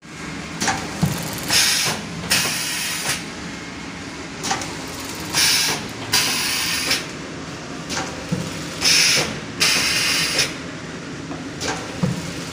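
Automatic side-sealing shrink wrap machine running with a steady hum. About every four seconds it repeats a cycle of a click followed by two short hisses.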